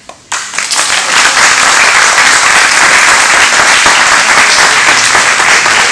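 Audience applauding. The clapping breaks out suddenly just after the start and keeps up steadily.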